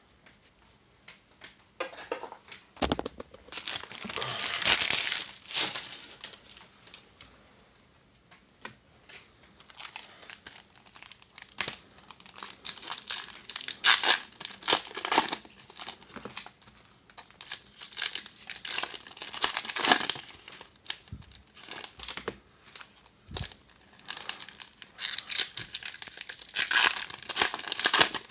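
Foil wrappers of 2019 Topps baseball card packs being torn open and crinkled by hand, in irregular bursts.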